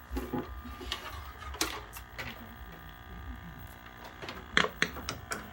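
Handling noise at a 1969 Zenith tube television set: scattered clicks and light knocks, in two clusters, the second a little past halfway, over a faint steady hum.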